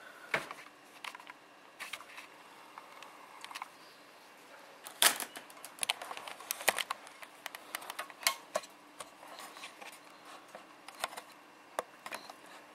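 Scattered small clicks and taps of plastic being handled: a laptop keyboard and its ribbon-cable connector being moved into place, with the sharpest clicks about five seconds in.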